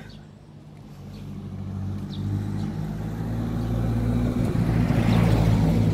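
A motor vehicle's engine approaching along the road and passing close by: a steady engine hum grows louder from about a second in and is loudest near the end, with tyre and road noise at its peak.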